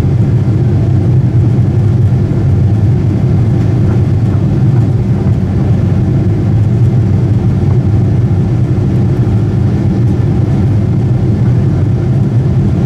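Boeing 747-8i cabin noise heard from a window seat over the wing: a steady, loud low rumble of its GEnx engines mixed with the rush of air past the fuselage, heard during the descent.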